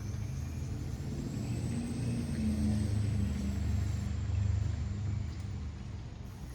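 Low engine rumble, swelling through the middle and easing off near the end, with a faint high whine above it.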